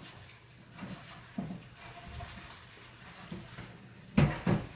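Dishes knocking against each other and the counter during dishwashing: a few soft knocks, then two sharp, louder knocks close together near the end.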